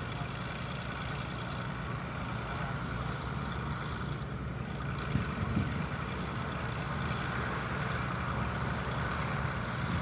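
John Deere tractor's diesel engine running steadily as the tractor pulls a cultivator across ploughed soil.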